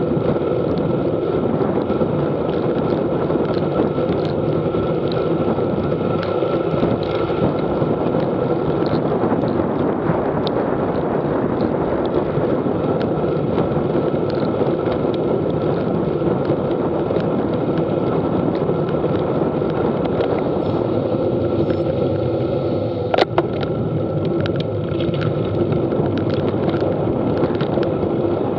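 Steady wind buffeting the camera's microphone while riding along a wet road, with tyre noise on the wet pavement beneath it. A single sharp knock comes late on.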